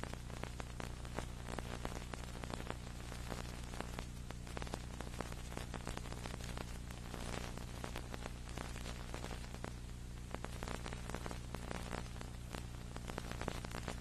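Dense crackling static over a steady electrical hum, with no crowd or commentary: the tape's audio track has dropped out, leaving only noise.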